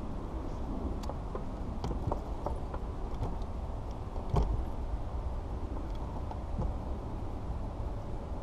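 Steady low rumble of wind and water around a fishing boat, with scattered light clicks and knocks from the angler working a baitcasting rod and reel on the deck. The loudest knock comes about four and a half seconds in.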